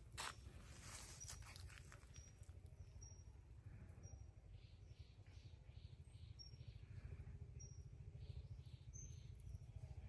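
Faint outdoor ambience: short high bird chirps about once a second, and from about halfway a run of quick repeated notes, about two a second, over a low steady rumble. A single click sounds near the start.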